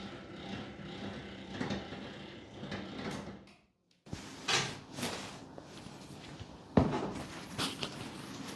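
A few knocks and clunks over a steady low hum, the loudest a sharp thump near the end; the sound cuts out for a moment near the middle.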